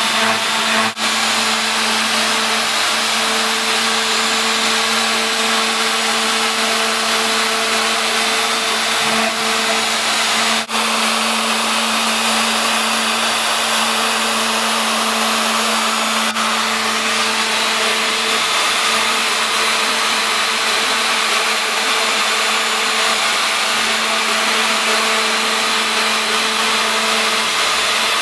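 Home-built CNC machine running its cutting spindle through a logo cut: a steady, loud motor whine over a continuous hiss, with two momentary dropouts about a second in and about eleven seconds in.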